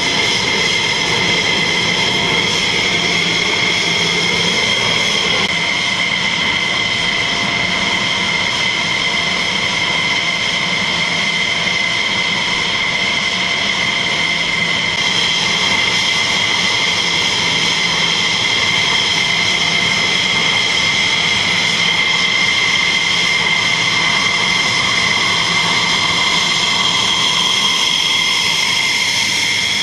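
F-16 Fighting Falcon jet engines running at taxi power. The sound is a steady, loud, high-pitched turbine whine over a rushing roar.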